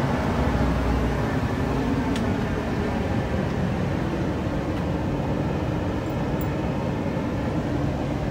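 Steady low rumble and hum of a commuter train standing at the platform.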